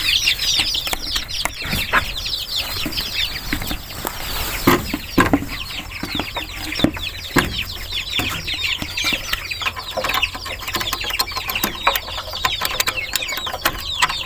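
A brood of ducklings and chicks peeping nonstop, a dense chorus of quick, high, falling cheeps, with a few knocks around five and seven seconds in.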